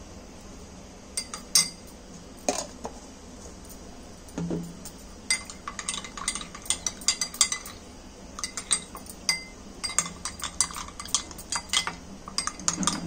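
Steel spoon clinking against a drinking glass while honey is stirred into a glass of herbal kadha. A few separate knocks come first, then rapid, ringing clinks from about five seconds in.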